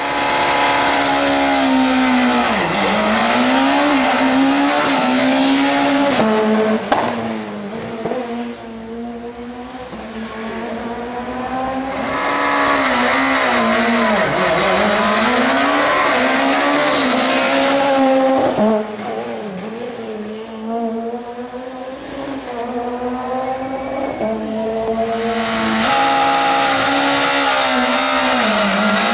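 Rally car engines revving hard at a special-stage start, in spells of several seconds. Each time the revs dip and climb back up, with quieter stretches in between.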